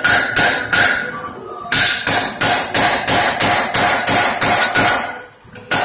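Steady run of hammer blows on steel, about three to four a second, each with a short metallic ring. It breaks off briefly about a second and a half in and again near the end. The blows land on the bolt and nut insert being seated up into the Jeep Wrangler's frame at the transmission cross member.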